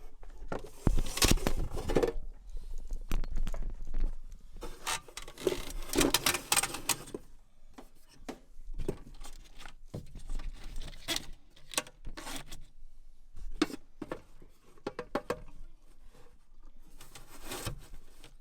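Hand work fitting parts: irregular scrapes, rubs and light clicks and rattles, busiest in the first several seconds and sparser after.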